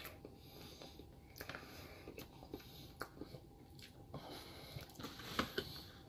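Close-up eating of soft frosted sponge cake from a fork: faint chewing and mouth smacks with scattered small clicks, the sharpest a little after five seconds in.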